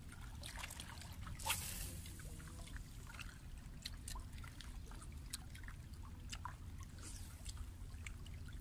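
Small sea waves lapping and trickling among shoreline rocks, with many small splashes and drips and one louder splash about one and a half seconds in, over a low steady rumble.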